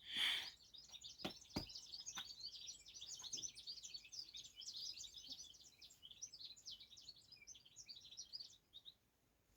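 Many small birds chirping together in a dense, faint chorus of short high calls, with a few sharp knocks in the first couple of seconds.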